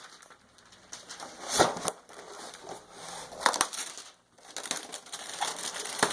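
Rustling and crinkling of packaging being handled, in irregular bursts, loudest about a second and a half in and again about three and a half seconds in.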